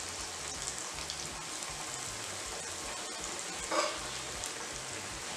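Potato tikkis deep-frying in hot desi ghee in a kadhai: a steady, dense sizzle of bubbling fat, with one brief louder sound about four seconds in.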